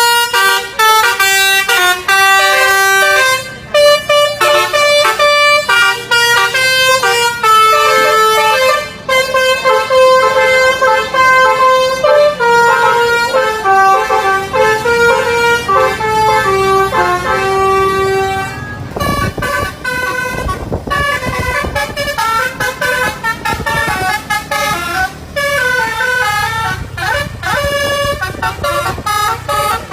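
A bus's basuri telolet horn, a multi-tone musical horn, playing a fast tune of short stepped notes, one after another without a break. A broad rumble cuts in about two-thirds of the way through while the tune goes on.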